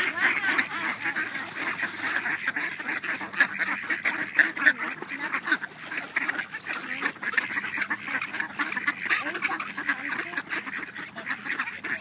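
A flock of mallard ducks quacking continuously, many overlapping calls from birds crowding in to be fed.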